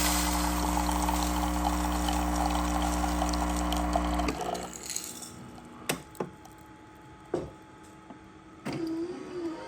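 Mcilpoog WS-203 super-automatic espresso machine brewing a double espresso: its pump hums steadily while coffee pours into the cup, then both stop about four seconds in. A few drips follow.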